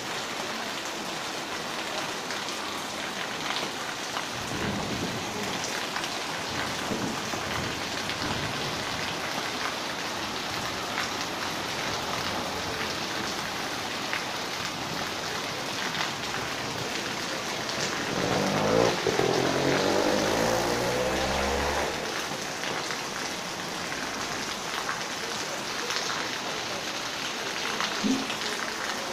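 Steady rain falling on trees, roofs and the street: a continuous hiss with scattered drop taps. About two-thirds of the way through, a low rumble swells louder for a few seconds and then fades.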